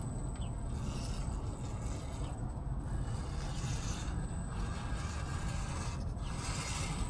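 Axial Capra RC rock crawler's electric motor and gear drivetrain running with a grinding, scraping mechanical noise as it crawls, over a steady low rumble.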